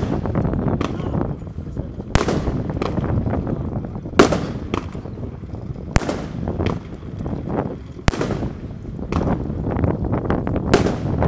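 Lesli 'Wheelie Time' firework firing shots that burst in the air: a sharp bang about every two seconds, with smaller pops and crackle in between.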